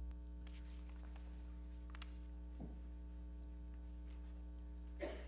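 Steady low electrical hum from the sanctuary's sound system, with a few faint knocks and rustles of handling at the pulpit and a brief louder noise just before the end.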